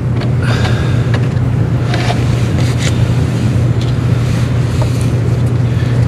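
A steady low machine hum, with brief scraping and rustling a few times.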